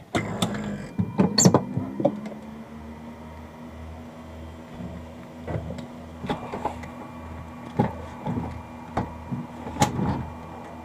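Knocks and clatter of doors, seat belts and luggage being handled inside a small aircraft cabin, the loudest about a second and a half in. Underneath runs a steady hum with a low throb pulsing about twice a second.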